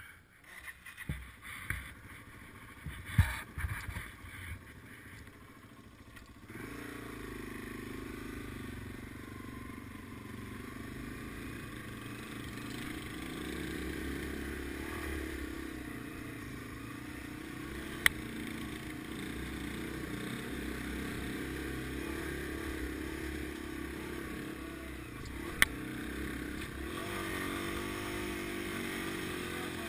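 Scattered clattering knocks, one loud, then from about six seconds in a Yamaha TW200's air-cooled single-cylinder four-stroke engine running steadily as the bike rides along a dirt trail. Two single sharp ticks cut through the engine sound later on.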